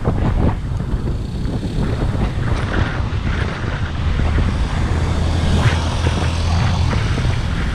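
Wind buffeting an action camera's microphone on a moving bicycle, with road traffic around it. A steady low drone, typical of a passing vehicle's engine, comes in about four seconds in and fades near seven seconds.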